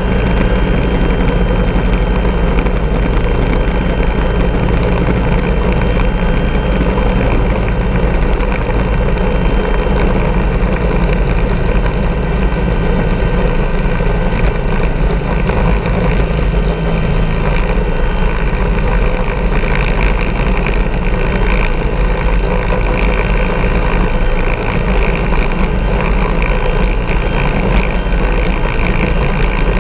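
Bell 412 helicopter's twin turbine engines and main rotor running steadily, heard from a camera mounted on its tail boom, a loud constant sound with several steady whining tones over a heavy low rumble.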